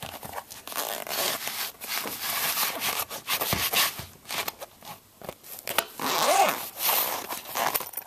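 Zip on a small soft fabric meter case being pulled open around the case in a series of short zipping strokes.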